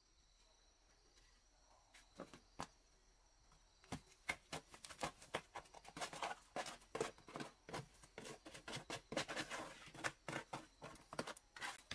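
A run of irregular light clicks and knocks: a few at first, then several a second from about four seconds in.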